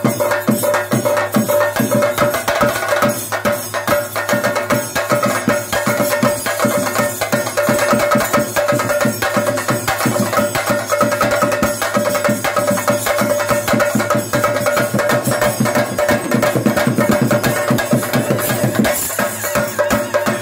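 Chenda drums and cymbals playing a fast, continuous ritual rhythm for a Muthappan vellattam, a dense, unbroken stream of strokes.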